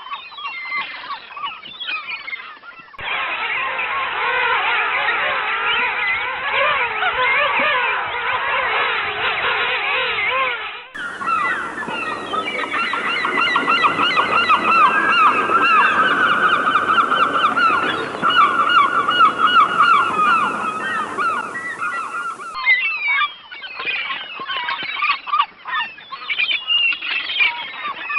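Many birds calling at once, dense overlapping calls. The sound changes abruptly about 3, 11 and 22 seconds in, where different recordings are joined.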